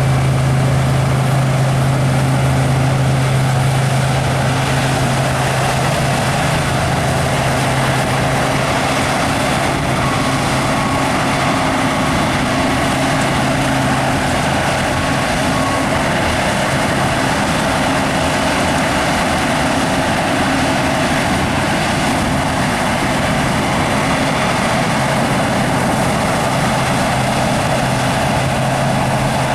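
Harvest machinery running steadily at a constant engine speed: a diesel engine's even hum with a broad mechanical noise over it.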